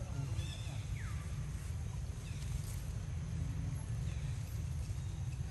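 Outdoor ambience dominated by a steady low rumble, with a few faint high calls over it; one call about a second in slides down in pitch.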